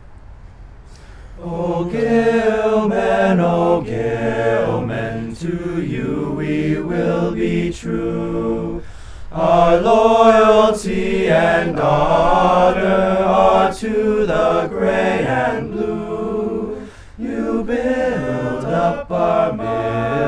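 Boys' a cappella group singing together into a microphone, starting about a second and a half in, with brief breaks between phrases.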